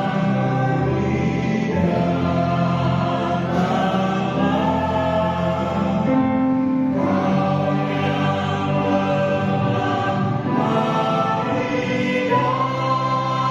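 Church choir singing in close vocal harmony, holding long chords that change every few seconds.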